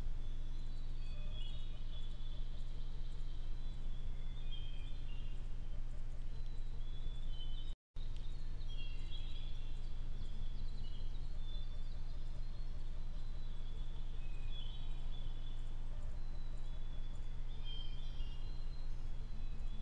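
Steady low hum of a trail camera's microphone, with faint high chirping and trilling calls from the night woods coming and going throughout. The sound drops out completely for a moment about eight seconds in.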